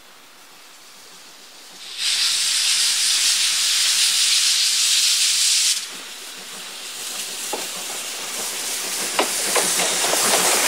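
Steam locomotive C58 363 passing close: a loud hiss of steam from its cylinder drain cocks starts about two seconds in and stops sharply near six seconds. The train's rumble then builds, and wheels click over the rail joints as the 12-series coaches go by near the end.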